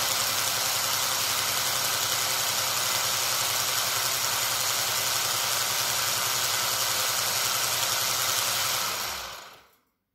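SilverCrest hand blender's electric motor whirring at a steady high speed, driving its balloon whisk attachment spinning empty in the air. It starts abruptly, runs steadily for about nine seconds, then is switched off and spins down quickly near the end.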